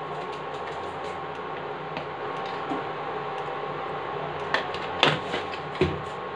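Small steel spoon knocking against a kadhai as salt is added to the masala paste, three sharp knocks in the second half, over a steady machine hum.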